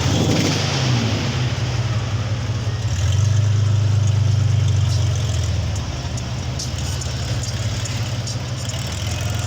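Chevrolet Opala engine rumbling at a steady low, even pitch, a little louder for about two seconds from three seconds in, then easing slightly.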